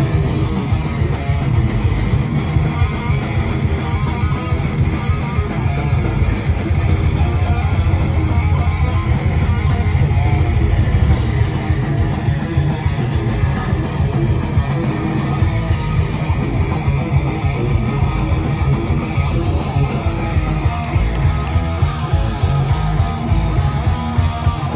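Thrash metal band playing an instrumental passage live, loud and without vocals: electric guitars, bass guitar and drums.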